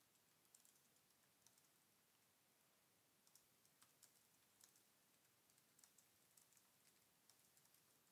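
Faint typing on a computer keyboard: quick, irregular key clicks with a short pause partway through, as a book title is entered into a search box.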